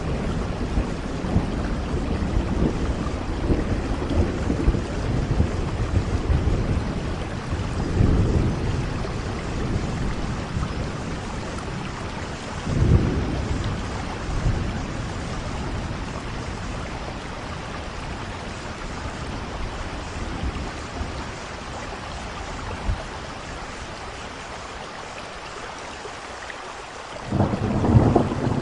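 Steady rain falling through a thunderstorm, with low rolls of thunder swelling up several times. The storm eases into a quieter spell, then a loud rumble of thunder breaks in near the end.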